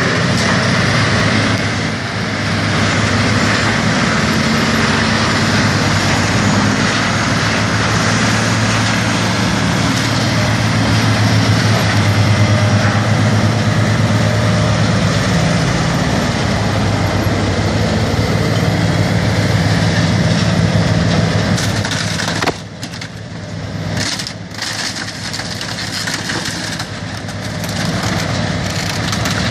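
Engine-driven grinder running steadily, a constant engine note under loud grinding noise. About 22 seconds in the noise drops suddenly and the machine runs quieter with a few brief surges, then builds again near the end.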